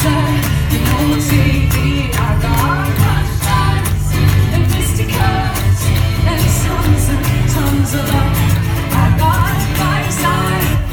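Live band playing a pop song, a woman singing over heavy bass and a steady drum beat.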